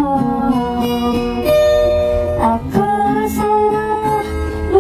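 Pop ballad music: guitar accompaniment under a sung melody of long, held notes.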